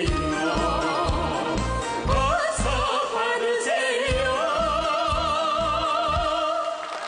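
A singer's melody over a backing track with a steady pulsing bass beat, ending in a long note held with wide vibrato; the music stops just before the end.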